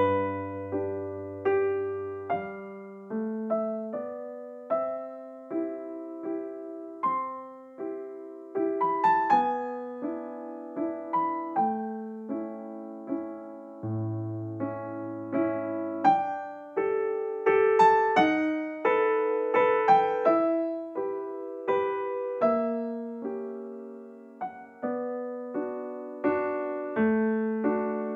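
Background music: a keyboard melody with notes struck and left to ring and fade, about one or two a second.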